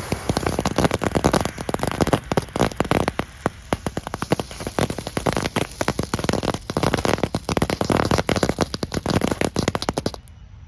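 Small consumer novelty firework crackling: a dense, fast run of sharp pops and snaps lasting about ten seconds, stopping abruptly near the end.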